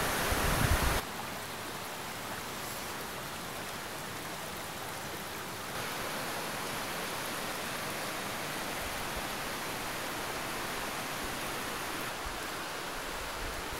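Rushing river water over rocks, a steady even hiss. The first second is louder with a low rumble that cuts off suddenly, and the hiss steps up slightly about six seconds in.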